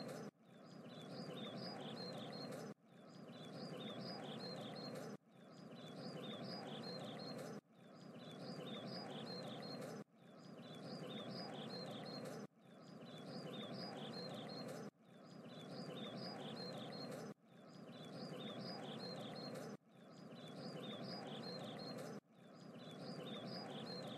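Faint looped outdoor ambience: birds chirping over a steady hiss. It is a short clip of about two and a half seconds that restarts over and over, each time cutting off suddenly and fading back in.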